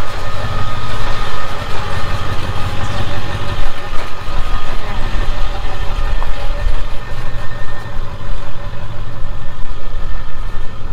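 Ford OBS pickup's 7.3 Powerstroke turbo-diesel V8 running at low speed as the truck crawls away over a rocky trail, its low rumble strongest in the first few seconds and easing as it pulls away.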